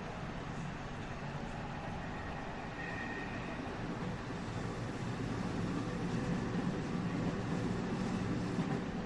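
Interior running noise of a JR West 207 series 1000 subseries electric train, recorded in motor car KuMoHa 207-1037: a steady rumble of wheels on rail that grows a little louder about halfway through, with a brief high tone about three seconds in.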